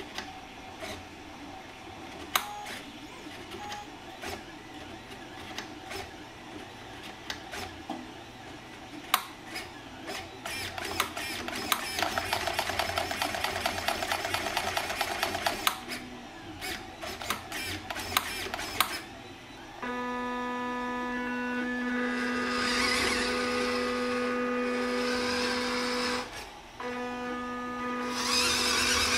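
WPL B36 Ural 4320 1/16-scale RC truck: its steering servo buzzes and clicks in short bursts as the front wheels are turned back and forth. Then its drive motor and gearbox whine at a steady pitch as the truck drives, cutting out briefly near the end and starting again.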